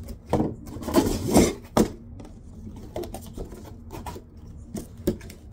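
Cardboard box being handled: irregular scuffs and knocks, loudest between one and two seconds in, followed by a few lighter taps.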